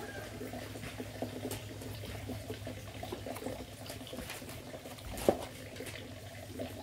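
Metal spoon scraping and scooping the soft wet flesh of a freshly picked young coconut inside its husked shell, a run of small wet scrapes and clicks, with one sharper knock against the shell about five seconds in.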